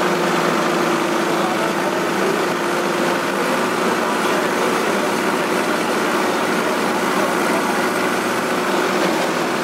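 Diesel tractor engines of a Sonalika DI 750 and an Indo Farm tractor running steadily at a constant pitch, held ready before a pull.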